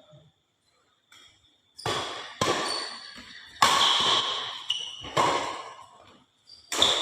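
A badminton rally: rackets hitting the shuttlecock in sharp, echoing smacks, five hits about a second or so apart, starting about two seconds in.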